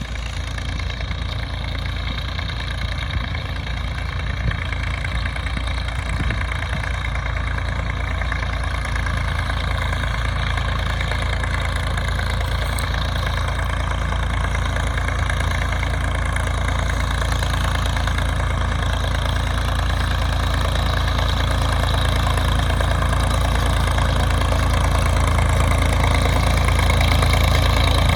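Tractor engine running steadily while working a hay baler, gradually getting louder.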